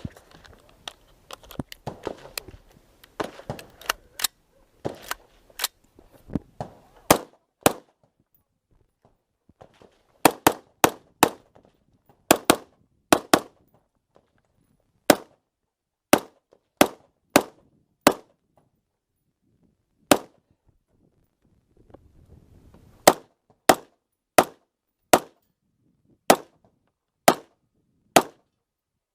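AR-15 rifle firing a string of sharp shots, some single and some in quick pairs, with pauses of a second or more between groups. Softer clattering and rustling come before the loud shots begin.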